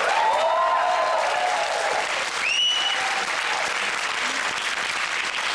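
Studio audience applause, with a short high rising note about two and a half seconds in.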